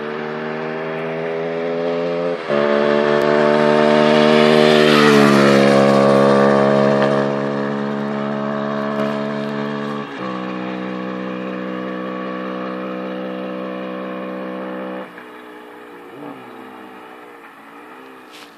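Husqvarna SMR 125 supermotard's single-cylinder engine running at held revs. The revs step up and get louder about two seconds in, ease back in steps, then drop to a lower, quieter idle with small wavering revs near the end.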